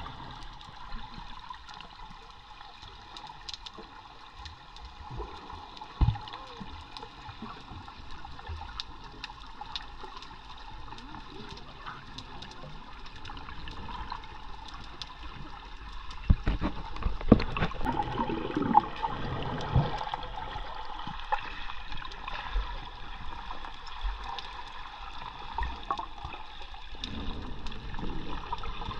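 Muffled water noise picked up by a camera held underwater, with scattered knocks and clicks, more of them from about sixteen seconds in.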